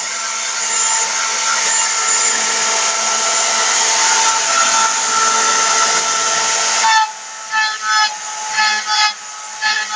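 CNC mill cutting an aluminium casting: a steady, loud cutting noise with a spindle whine of several steady tones. About seven seconds in the cutting noise drops suddenly and gives way to short, irregular bursts of cutting while the whine continues.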